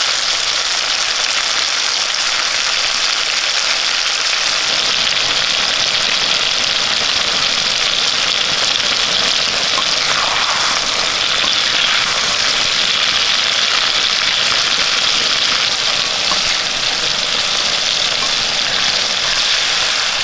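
Raw mango slices shallow-frying in hot sesame oil in an iron wok, giving a steady, loud sizzle.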